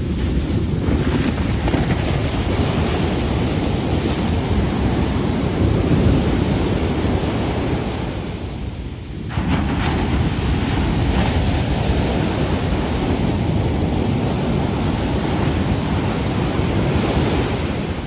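Heavy shore break from large hurricane swell: waves crashing and whitewater surf rushing up the beach, with wind buffeting the microphone. The noise dips briefly about nine seconds in, then surges back.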